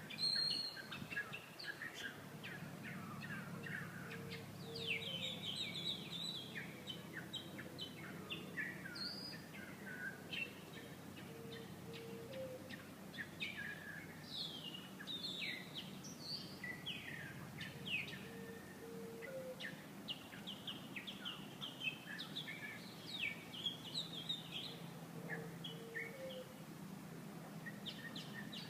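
Wild songbirds singing: a busy mix of quick chirps and trills, with a lower repeated call about every seven seconds and a low steady hum underneath.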